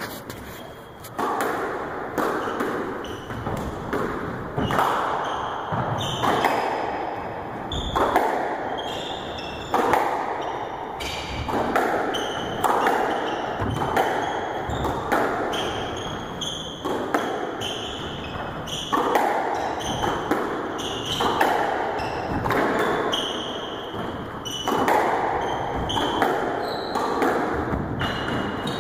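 Squash rally: the ball is struck by rackets and smacks off the court walls about once a second, each hit echoing. Short high squeaks of sneakers on the wooden floor come between the hits.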